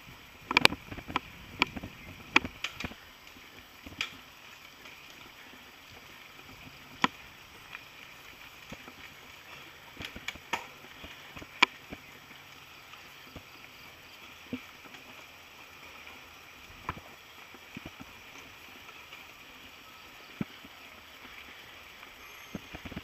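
Mountain bike riding over a dirt track: a steady rush of tyre and trail noise with sharp knocks and rattles from the bike jolting over bumps, many in the first few seconds, then scattered single knocks.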